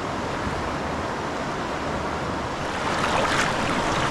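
Steady rush of river current flowing around the wader's legs, with a few brighter splashing sounds about three seconds in.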